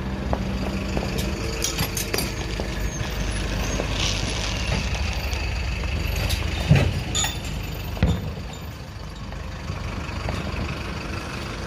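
Fireworks going off: scattered pops and crackles, with two louder bangs a little past the middle, over a low steady rumble like a vehicle engine.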